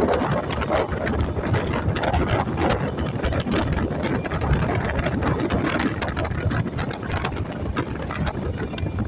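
Steady rumble of a moving vehicle with constant rattling and quick knocks throughout.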